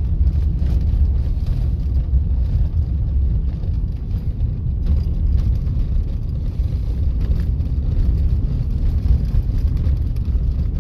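Steady low rumble of a vehicle driving slowly on a dirt road, heard from inside the cab: engine and tyre noise.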